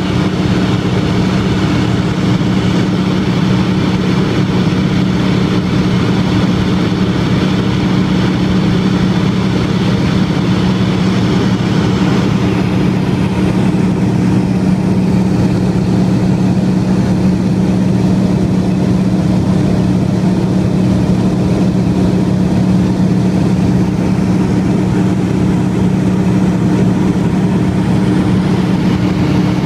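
Steady drone of a de Havilland Canada DHC-2 Beaver seaplane in cruise, heard from inside the cabin: its nine-cylinder radial engine and propeller give a constant low hum with a hiss of airflow above it. The hiss eases slightly about twelve seconds in, while the engine note stays unchanged.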